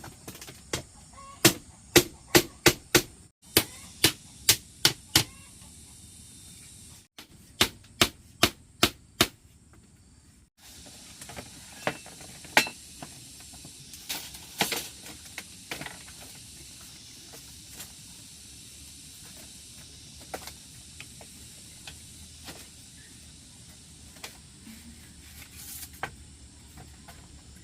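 A hand tool striking wood in quick runs of blows, about three to four a second, in two bursts in the first ten seconds, then scattered lighter knocks over a steady background hiss.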